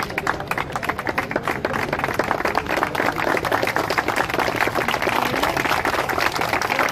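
A group of people applauding, many hands clapping steadily and closely together.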